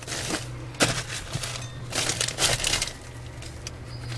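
Irregular rustling, crinkling and scraping from a mouse being grabbed at among its bedding, over a steady low hum.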